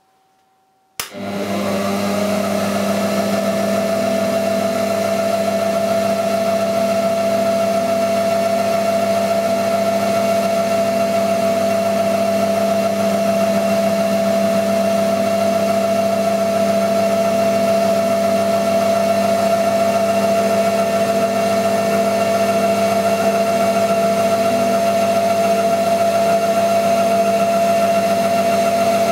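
Cowells vertical milling machine's spindle motor switched on with a click about a second in, spinning up within a second and then running at a steady speed with a constant whine and hum.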